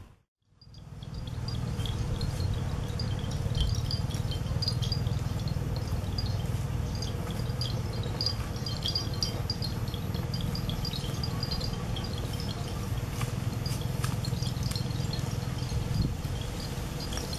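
Outdoor ambience: a steady low rumble with many short, high, scattered chirps, after a brief dropout at the start.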